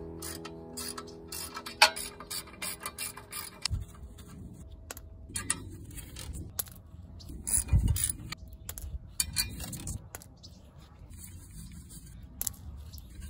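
Hand ratchet and wrench clicking and clinking while loosening the clutch pressure-plate bolts on a Toyota Tacoma, irregular metal clicks with a couple of duller knocks.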